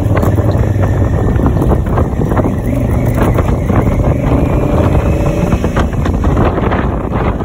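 Wind buffeting the microphone of a Honda Africa Twin motorcycle on the move, with the bike's parallel-twin engine running steadily beneath the rumble.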